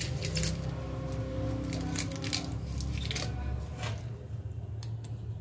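Scattered light clicks and taps from handling the laptop's hinge area and glue, over a low steady hum; the clicks thin out after about four seconds.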